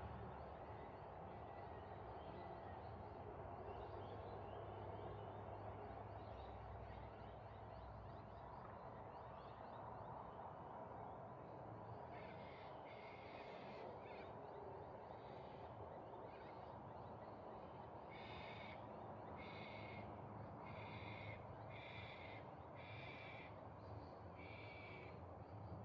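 A bird calling repeatedly: about ten short, harsh calls a little over a second apart, starting about halfway through. They sound over a faint, steady background hum.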